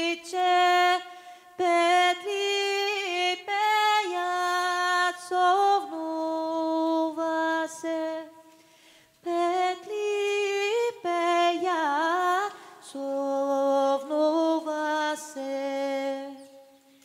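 A woman singing a slow South Slavic folk song unaccompanied, holding long ornamented notes with a wide wavering turn about twelve seconds in and short pauses for breath.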